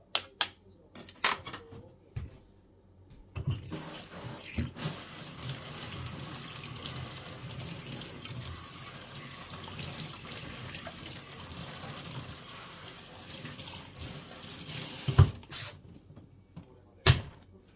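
Kitchen tap running steadily for about twelve seconds, starting a few seconds in and stopping with a knock. A few light clicks come before it, and another knock near the end.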